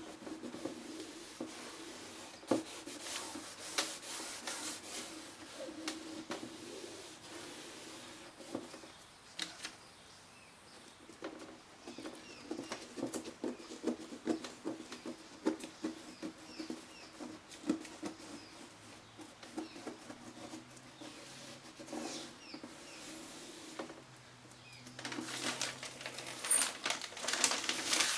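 Hands working the cloth and plastic of a car door trim panel: rubbing and scraping of fabric with scattered small clicks and taps, over a steady low hum. The rubbing grows louder and hissier near the end.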